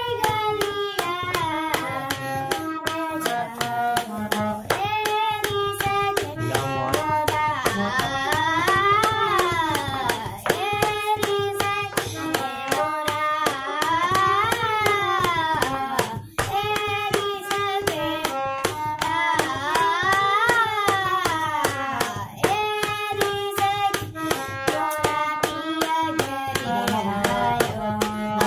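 A boy singing an Indian classical-style melody with long gliding ornaments, accompanying himself on a harmonium, over a steady stream of sharp percussive strokes.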